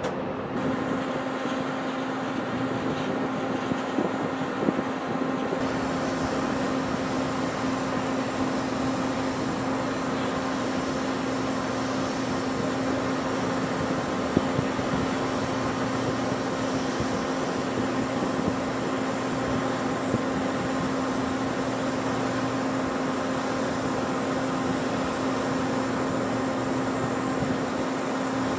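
Jet engine noise from a Ryanair Boeing 737 at takeoff thrust as it rolls and climbs away. It is an even rushing noise over a constant low hum, with a few short clicks.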